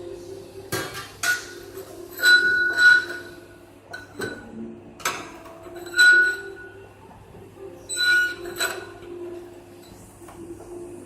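Metal clinking: about nine sharp knocks, several leaving a short, bright ring, over a steady low hum.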